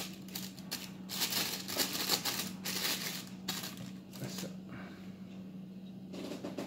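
Packaging being rustled and crinkled by hand as a pair of sunglasses is unwrapped. The handling runs for about four seconds and then dies down to a few light touches, over a faint steady hum.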